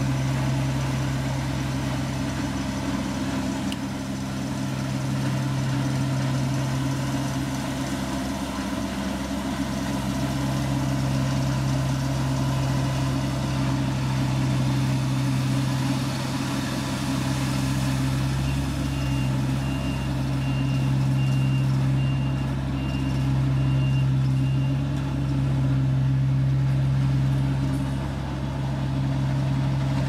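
Yanmar AJ323 combine harvester running steadily under load as it cuts and threshes rice, with a constant low engine drone. From a little past halfway, a string of short high beeps sounds for about six seconds.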